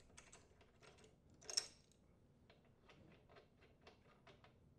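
Faint clicks and taps of a socket wrench and a spark plug being worked loose from a lawn mower engine. There is one louder clack about a second and a half in, then a run of light ticks, about five a second.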